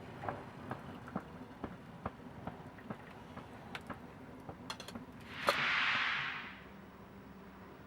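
Wood fire crackling with scattered sharp pops. About five and a half seconds in, a sharp click is followed by a short hiss that fades away over about a second.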